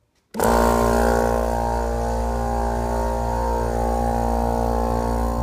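Stripped-down Kobalt portable air compressor switched on inside its foam-lined silencer box: the motor and piston pump start suddenly just after the start and run with a loud, steady, buzzing drone.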